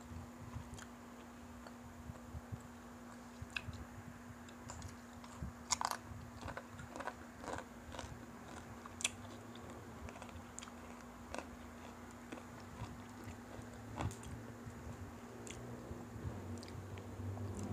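Close-up eating sounds of crispy fried chicken: irregular crunches of the fried skin breaking and being chewed, with a burst of louder crunches about six seconds in. A steady low hum runs underneath.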